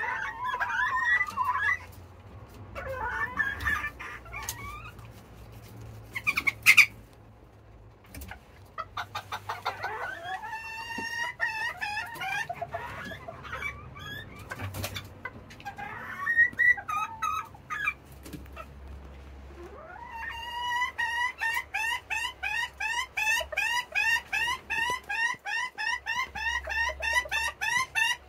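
Serama bantam chickens calling in the coop: assorted clucks and squawks, broken by one short, loud, sharp sound about a quarter of the way in. In the last third a steady, rapid run of clucks sets in, about three a second.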